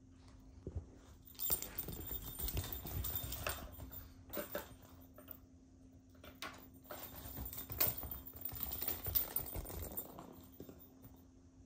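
Shiba Inu's paws padding and claws clicking across the floor and tatami, with a small toy ball being knocked about as the dog and a kitten go at it. It comes in two spells of scuffling and clicks.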